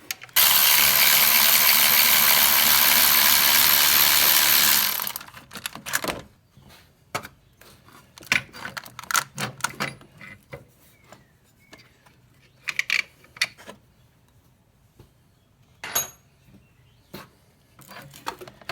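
A handheld power tool runs for about four and a half seconds, spinning out the alternator's top mounting bolt. It is followed by scattered metallic clicks and knocks as the bolt and the alternator are handled.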